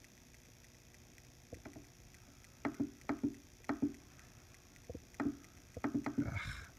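Soft irregular knocks and clicks of fingers working the knob and buttons of a Line 6 Helix while spelling out a preset name. They come in short clusters from about two and a half seconds in, with a brief rustle near the end.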